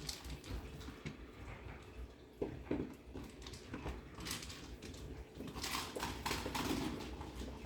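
Faint scattered clicks, taps and rattles of small hard objects being handled, a little busier in the second half.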